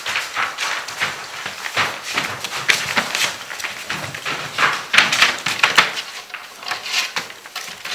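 Gordon Setter puppies scrabbling and rolling on a paper-covered floor: irregular scratching, crinkling and tapping of paws and claws on the paper.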